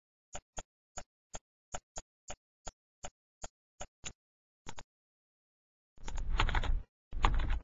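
Computer mouse clicking, about thirteen sharp clicks at a steady pace, some in quick pairs. After a pause, two louder stretches of scraping noise, the first about a second long, the second shorter.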